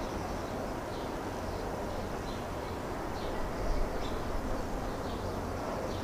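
Steady outdoor background noise with a low rumble, and faint bird chirps about once a second.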